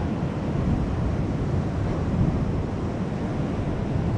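Ocean surf washing steadily against a rocky shore, with wind buffeting the microphone.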